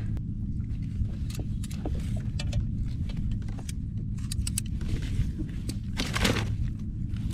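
Scattered sharp clicks and taps of fishing gear being handled on a kayak, with a longer rustle or scrape about six seconds in, over a steady low rumble.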